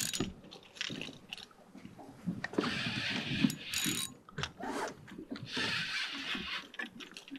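Spinning reel whirring and clicking in three short bursts as a hooked fish is played on a bent rod.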